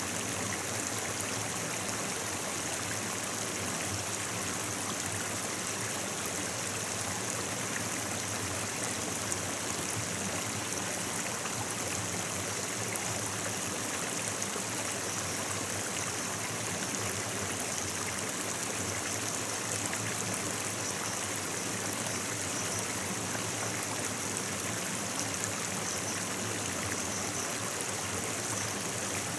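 Flowing stream water rushing steadily, an even hiss with no breaks or changes.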